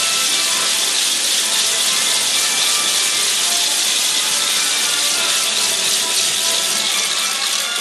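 Marinera music playing under a steady, dense rasping noise that covers the high end.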